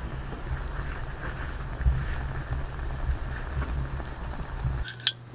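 Hot pot broth bubbling at a boil in a shallow pan on a portable gas stove, a dense crackle like rain over a low rumble. About five seconds in it cuts off, and a single sharp clink follows.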